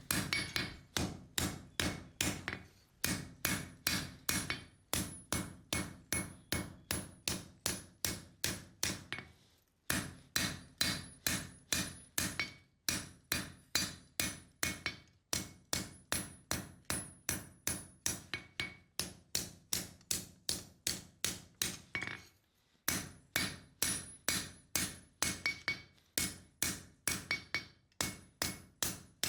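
Hand hammer striking hot 5160 spring steel on an anvil to forge a knife blade's profile: steady blows about three a second, in runs broken by short pauses, each with a bright metallic ring.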